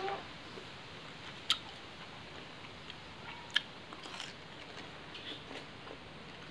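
Close-miked biting and chewing of raw elephant apple slices: two sharp, crisp crunches about a second and a half and three and a half seconds in, then softer chewing.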